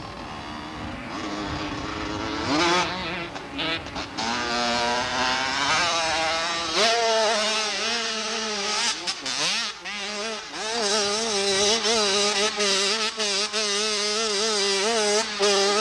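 Dirt bike engine revving and pulling hard up a steep dirt hill. The revs climb in repeated rises over the first few seconds, then hold high with a wavering pitch as it labours up the slope.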